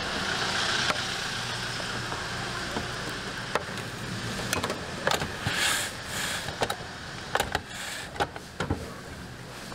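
Plastic rice paddle scraping and tapping as cooked rice is spread onto the hot plates of an electric nurungji press, then the press's metal lid clicking and clunking shut near the end, over a steady hiss and low hum.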